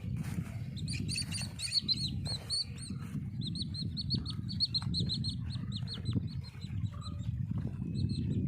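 Small birds in a paddy field chirping in quick runs of short, high notes, about four or five a second, over a steady low rumble.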